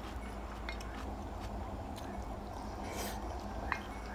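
Wooden spoon and fork clicking and scraping against a ceramic plate, a few light clicks with a short scrape about three seconds in, over a steady low hum.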